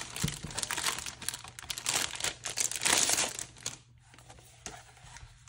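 Clear plastic wrapping crinkling and rustling as a book is slid out of it; the crinkling stops after about four seconds, leaving a few light taps.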